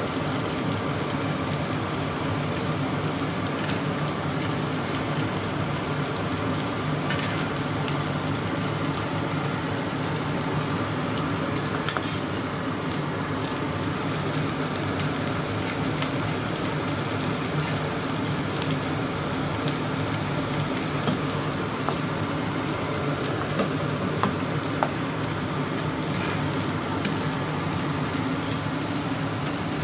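Pieces of largehead hairtail (ikan layur) frying in hot oil in a pan: a steady sizzle with scattered small pops of spitting oil.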